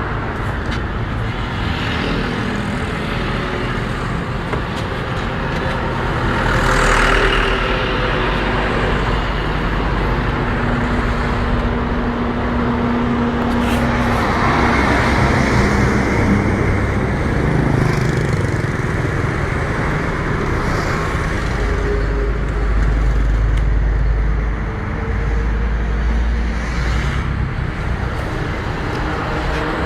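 Loud, continuous motor and road-traffic noise, swelling and easing several times as vehicles pass.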